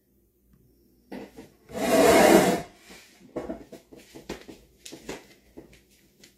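Movement and handling noise: rubbing and soft irregular knocks, with one loud rushing whoosh lasting about a second, about two seconds in.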